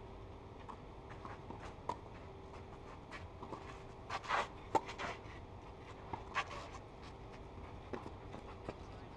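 Tennis ball struck with rackets and bouncing during a rally on a clay court: a string of short, sharp knocks, the loudest a close racket hit about halfway through, just after a brief scraping. A faint steady hum runs underneath.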